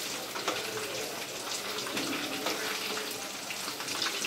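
Hot oil bubbling and sizzling steadily around pieces of marinated chicken deep-frying in a kadai, with many small crackles.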